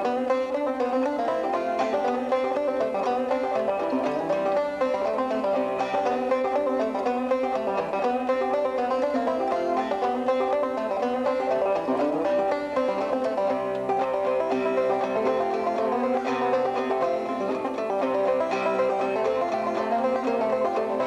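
Lively bluegrass-style music led by a plucked banjo, playing continuously.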